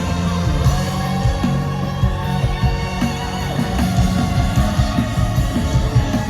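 Live band music with rock guitar, played over a concert sound system during a sound check.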